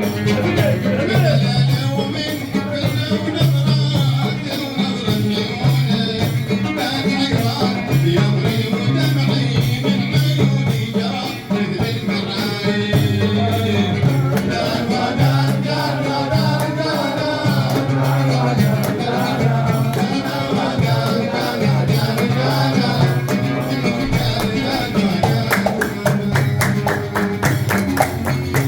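A man sings a Hadhrami song live with instrumental accompaniment over a steady repeating percussion beat. Near the end, quick sharp taps come in over the music.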